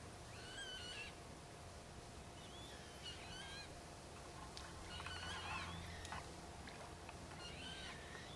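Faint calls of a water bird: short wavering calls in groups every two to three seconds, over a low steady hum.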